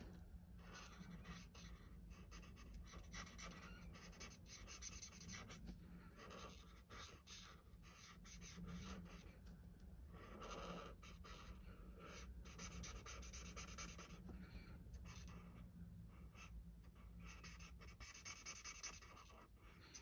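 Faint scratchy rubbing of a Stampin' Blends alcohol marker nib on cardstock in many short, irregular strokes, colouring in leaves.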